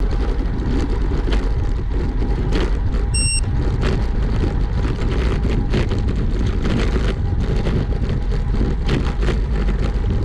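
Steady, loud wind and motion noise buffeting the camera microphone, with a short electronic beep about three seconds in.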